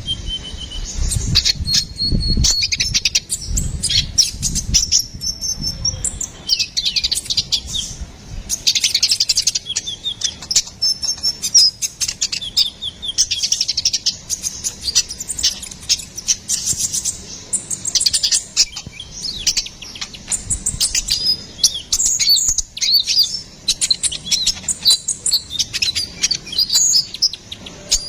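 Van Hasselt's sunbird (kolibri ninja) singing: a fast, high-pitched, near-continuous run of chirps and trills with only brief pauses.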